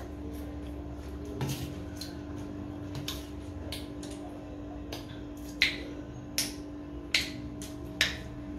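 Eating sounds at a table: a scattered series of short sharp clicks from spoons, plates and mouths while eating wet chatpate, the four loudest coming about a second apart in the second half. A steady low hum runs underneath.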